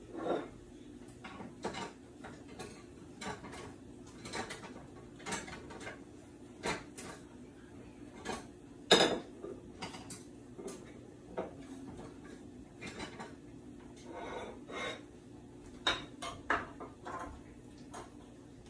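Kitchen clatter of dishes and cutlery: scattered clinks and knocks of utensils and plates handled on a countertop, the loudest about nine seconds in, over a faint steady low hum.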